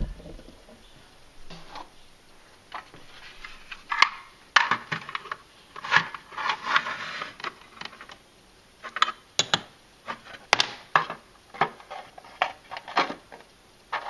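Hands handling small miniature pieces inside a dollhouse-scale room box: scattered light clicks and taps as things are picked up and set down, with a stretch of rustling around the middle.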